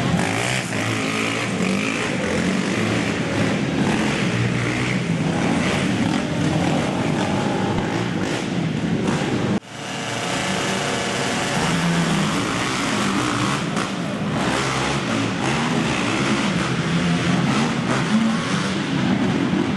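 Several racing quad (ATV) engines revving up and down as the quads race, their pitches overlapping and shifting. The sound cuts off abruptly about halfway through, then picks up again.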